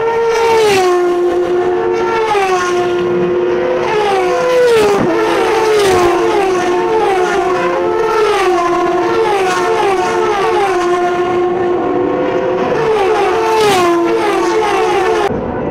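A pack of Turismo Carretera race cars accelerating together, their engines running at high revs, the pitch stepping down again and again as the drivers shift up through the gears, several cars overlapping.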